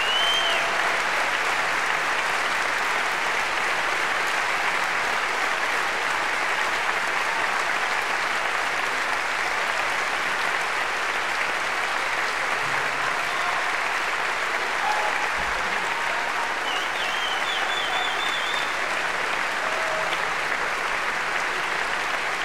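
Large concert-hall audience of about 3000 applauding steadily.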